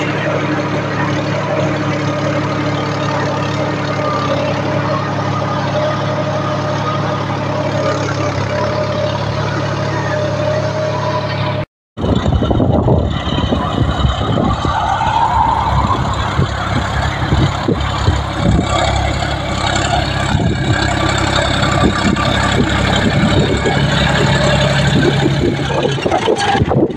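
John Deere 5050 D tractor's diesel engine running steadily under load while pulling a two-mouldboard plough, heard close up from the driver's seat. About twelve seconds in, the sound switches to the tractor heard from the field beside it, with wind buffeting the microphone.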